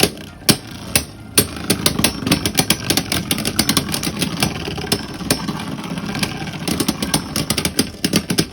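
Two Beyblade spinning tops, one of them Dynamite Belial fitted with the F gear in high mode, whirring and clattering against each other in a plastic stadium, with many rapid sharp clicks from their hits.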